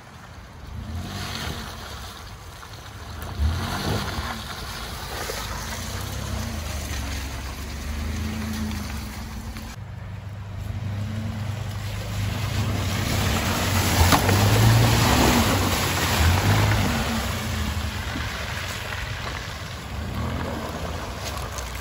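Chevrolet Colorado pickup's engine revving up and down as the truck drives along a muddy trail, with tyres working through mud and wind on the microphone. The sound changes abruptly about halfway through and is loudest a little after that.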